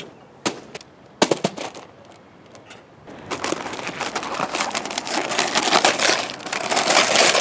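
Christmas wrapping paper being torn and crumpled as a present is unwrapped, a dense crackling rustle that builds over the second half. A few sharp knocks come before it, in the first second and a half.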